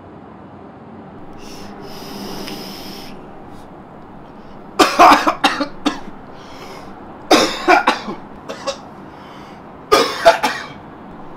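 A man coughing hard in three fits of several coughs each, about two seconds apart, after a breathy hiss about two seconds in.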